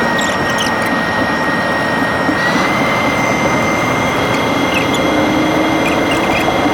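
Airliner engines running at takeoff power, a loud steady rush with a thin high whine on top that steps up slightly in pitch about two and a half seconds in.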